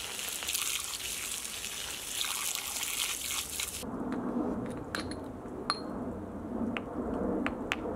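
A hose spray of water quenching a hot metal mold that holds freshly cast brass, a steady hiss that cuts off suddenly about four seconds in. After it come a few light metallic clinks and taps as the wet mold is handled on the brick.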